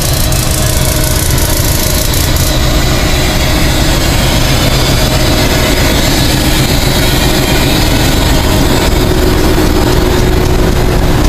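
Rift Valley Railways diesel-electric locomotive's engine idling close by, a loud, steady low rumble that holds unchanged.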